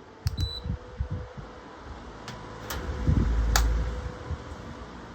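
Two electric fans, a pedestal fan and a tower fan, being switched up to high speed: a short beep and a few sharp clicks of their controls, over a steady motor hum and rushing air. Gusts of fan air buffet the microphone as a low rumble, strongest past the middle.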